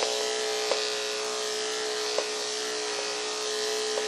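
Andis AGC Super electric pet clippers running with a steady hum while shaving matted fur from a cat's belly. A few brief ticks break the hum.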